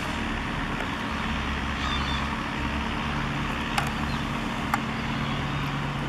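JCB backhoe loader's diesel engine running steadily under work, with a couple of faint clicks about two thirds of the way in.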